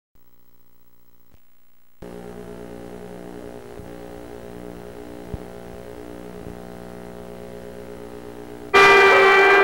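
Steady electrical hum with several held tones from the VHS tape playback, growing louder about two seconds in, with a single small click midway. Near the end a loud burst of crowd shouting and cheering cuts in suddenly.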